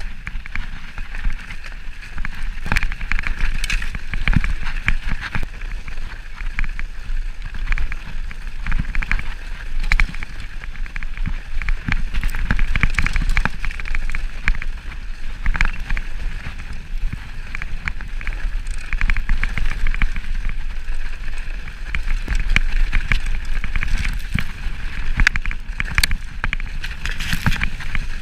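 Mountain bike riding over a snow-covered trail, picked up by a camera mounted on the bike: the tyres rolling through snow with a steady low rumble, and many short clicks and knocks as the bike rattles over bumps.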